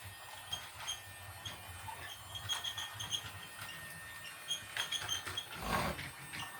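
A toy steam train set running in the background: faint, irregular high-pitched squeaks of one pitch, in little clusters, with soft clicks. A short rush of noise comes near the end.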